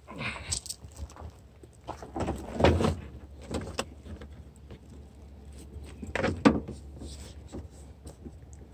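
Handling noise from a plastic headlight assembly and its bubble wrap being moved about: four short knocks and rustles, the loudest near the middle and about two-thirds of the way through.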